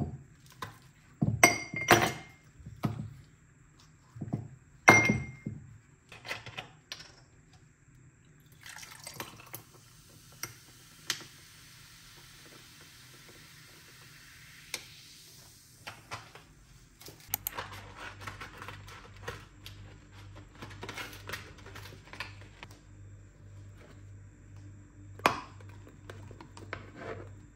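Ice cubes clinking and knocking into a drinking glass as they are tipped out of a silicone tray, then liquid coffee poured from a bottle over the ice for about seven seconds. Later come light clatters of food being set into a frying pan over a low pulsing hum.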